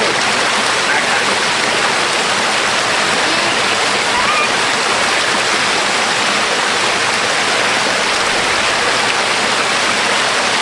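Waterfall rushing: a steady, unbroken hiss of falling and flowing water.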